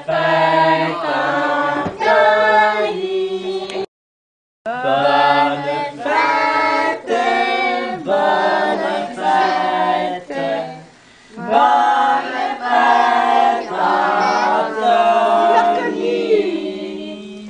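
A group of men and women singing a birthday song together in held, sung phrases. The sound cuts out completely for just under a second about four seconds in.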